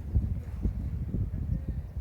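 Strong wind buffeting the microphone: an uneven low rumble with irregular thumps from the gusts.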